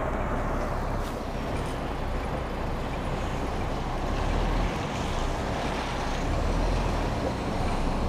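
Heavy goods vehicle's diesel engine running at low revs while the truck reverses slowly, heard inside the cab; the low rumble swells briefly twice, about halfway through and near the end.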